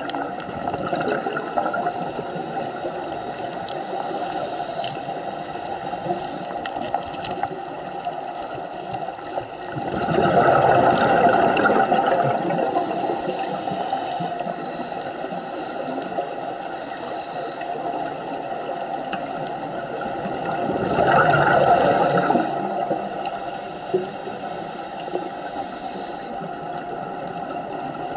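Scuba diver breathing underwater, heard through the camera housing: a steady watery hiss with two louder gurgling rushes of exhaled bubbles, one about ten seconds in and another about twenty-one seconds in.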